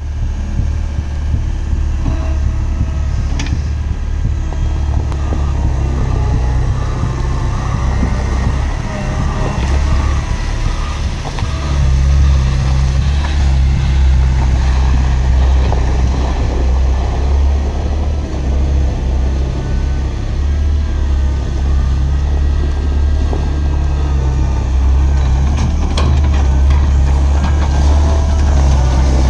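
Diesel engine of a 2010 Atlas 1404 ZW rail-road wheeled excavator running steadily while the machine drives and raises its boom, getting a little louder about twelve seconds in.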